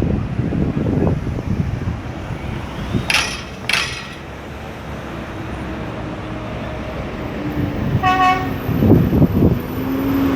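Busy street traffic with vehicle engines running and passing, two short hissing bursts a little after three seconds, and a steady engine hum from about halfway. A vehicle horn gives a short toot about eight seconds in.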